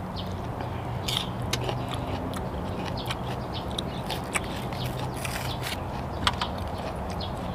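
Biting into and chewing raw yellow bell pepper: scattered crisp crunches and wet mouth clicks, with a steady low hum underneath.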